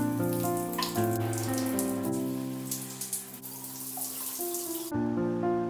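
Shower water running, a steady hiss that cuts off suddenly near the end, under background music with held notes.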